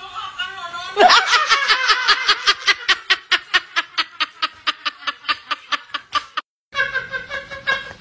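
A person laughing hard in a rapid, even run of short 'ha' pulses, about six a second, starting about a second in and cutting off abruptly near the end.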